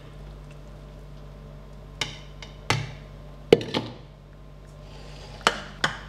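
Kitchen vessels knocking and clinking as they are handled and set down: a plastic blender jug and a metal strainer on a pot. There are about six short, sharp knocks in three quick pairs.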